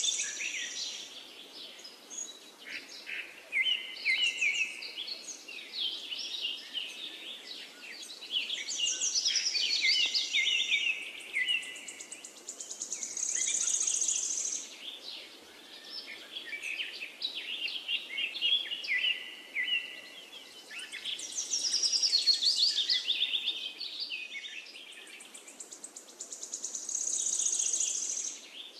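Many birds singing with chirps and high buzzing insect trills over a faint steady hiss. The busiest high trills come back about every 14 seconds, as in a looped nature-sound background track.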